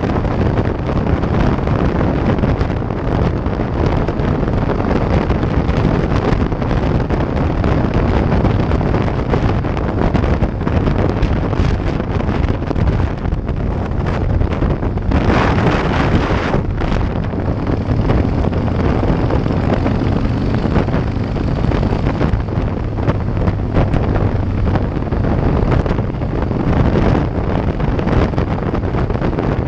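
Heavy wind buffeting on a GoPro microphone from a Harley-Davidson motorcycle at highway speed, with the V-twin engine humming steadily underneath. About halfway through, the wind rush grows louder for a couple of seconds.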